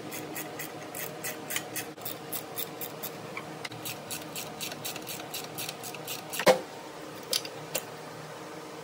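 Hand socket ratchet clicking at about four clicks a second as it tightens a bolt on an engine's power steering pump bracket, with one loud metallic clank about six and a half seconds in and two more clicks after it. A steady hum runs underneath.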